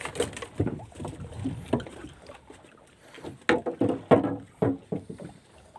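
Irregular knocks and thumps on a small fishing boat as a longline catch is hauled aboard, with a burst of several louder knocks just past the middle.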